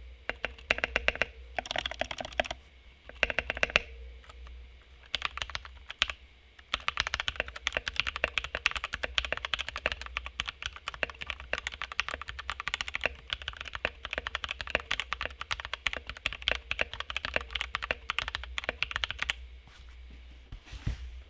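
Typing test on a VortexSeries VX5 60% mechanical keyboard with lubed linear switches: a few short bursts of keystrokes, then fast continuous typing from about 7 s to 19 s.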